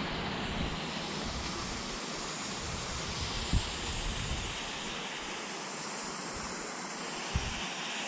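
Wind buffeting the microphone over a steady rushing hiss of open air, with two soft bumps about three and a half and seven and a half seconds in.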